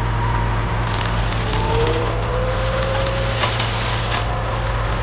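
A heavy machine's engine running steadily, with scattered crackling and snapping noises over it.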